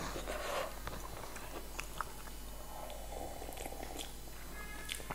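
Quiet chewing and soft mouth clicks of a person eating rice from a spoon, with a few faint scattered ticks.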